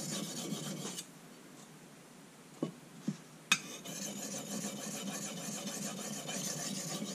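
Steel knife blade scraped back and forth across a dry soft Arkansas whetstone with its oil wiped off, a steady gritty scraping that stops about a second in and starts again at about three and a half seconds, with a couple of light knocks in the gap. The stone is glazing over and already cutting less well.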